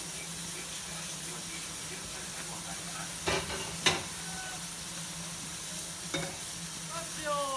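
Steady hiss of steam escaping from the 1912 Baldwin-built steam locomotive No. 9, with two sharp knocks a little after three seconds and just before four seconds, and a fainter knock about six seconds in.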